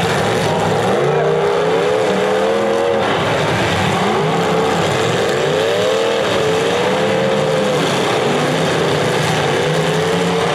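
Demolition derby cars' engines revving, the pitch climbing and falling again and again as the cars back up and lunge at each other.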